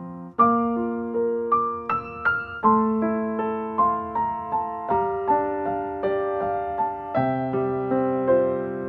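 Background music: a slow, gentle piano melody, each note struck and then fading away over sustained chords.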